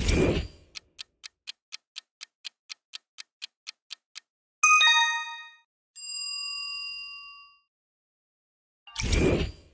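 Quiz-show timer sound effects. A short whoosh opens, then a clock ticks about three times a second for a few seconds. A bright chime rings about halfway through, a softer bell tone rings out for a second and a half after it, and another whoosh comes near the end.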